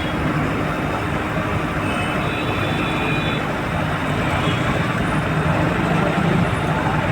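Steady rumble of vehicle engines and traffic noise, with faint high-pitched tones briefly near the middle.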